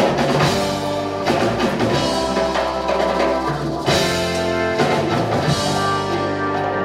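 Live Latin rock band playing an instrumental passage: drum kit, congas and timbales over electric guitars and bass guitar.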